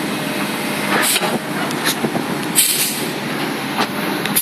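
Komatsu PC300-8 excavator at work: its six-cylinder diesel engine running steadily with several sharp metallic clanks and a brief hiss about two and a half seconds in.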